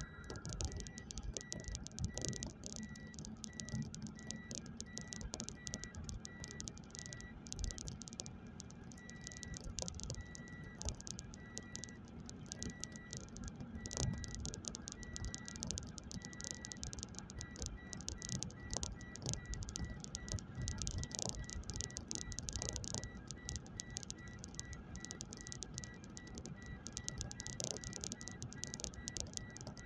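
Car cabin while driving: dense, irregular rattling and ticking over a low, steady hum of engine and road noise, with a faint high-pitched beep repeating throughout that quickens about halfway through.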